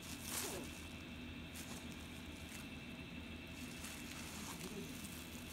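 Faint crinkling and rustling of the plastic wrap around a rice ball being handled, with a short louder rustle just after the start and a few soft crackles after it, over a steady low hum.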